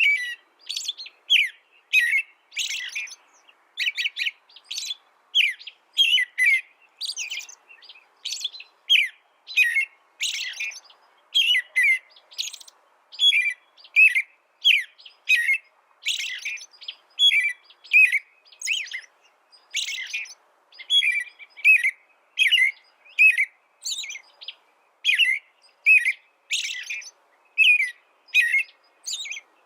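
A small bird calling over and over: short, sharp chirps repeated at a steady pace, about one and a half a second, each a quick falling note.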